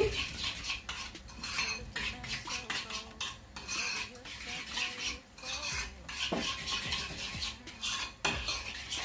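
A utensil stirring thick homemade salad cream in a bowl, clinking and scraping against the bowl in quick, irregular strokes.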